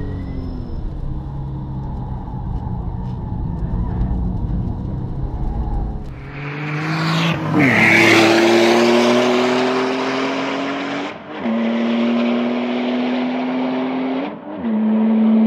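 Porsche 997 Turbo's twin-turbo flat-six with a Cargraphic exhaust. For the first six seconds it is a steady low rumble heard from inside the cabin. Then it is heard from trackside, accelerating hard with the engine note climbing, and two upshifts about eleven and fourteen seconds in.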